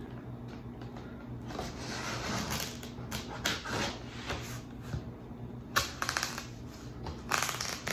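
Thick packing tape being picked at with fingernails and peeled off a cardboard shipping box: scratching on the tape, then short crackling rips as it comes loose, the longest about six seconds in and another near the end.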